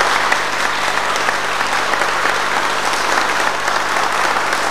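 Audience applauding: many people clapping in a steady, dense patter.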